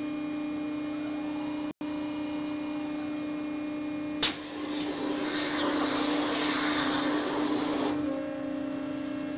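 Abrasive waterjet cutter (a 60,000 PSI unit) running, with a steady hum. About four seconds in, the jet comes on with a sharp pop and a loud hiss for nearly four seconds as it pierces and cuts a hole in 1/16-inch sheet metal, then shuts off.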